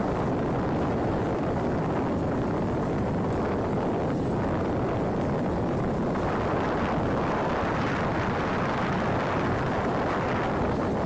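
Steady low rumble of jet aircraft engines running on a flight line, an even noise with no distinct tones or knocks.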